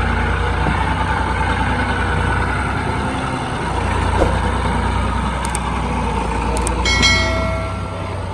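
Engine of a brick plant's mud-making machine running steadily with a heavy low rumble. A short shrill tone cuts in about seven seconds in.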